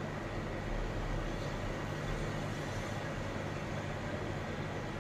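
Hot air rework station blowing steadily onto a smartphone circuit board to heat and solder the network IC: an even hiss with a faint high whistle over a low hum.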